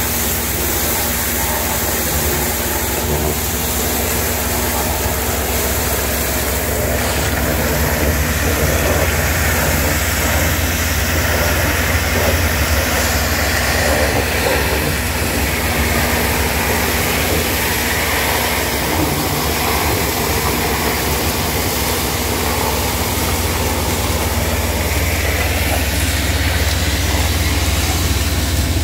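Western Star vacuum truck with a Weichai diesel, engine and vacuum system running steadily and loudly while excavating: a constant low drone under a broad rushing noise, with a steady humming tone that drops out a few seconds before the end.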